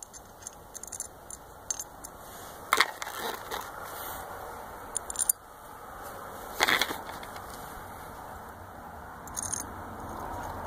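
Small carburetor screws clicking in a plastic parts bowl and being handled, scattered light clicks with two sharper knocks about three and seven seconds in.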